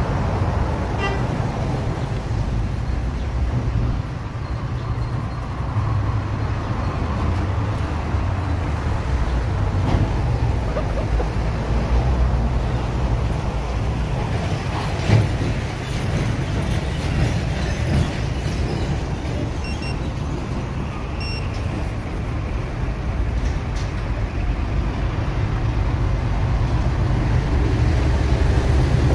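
Steady low rumble of road traffic, with a few brief toots around the middle. There is a single sharp tap about halfway through.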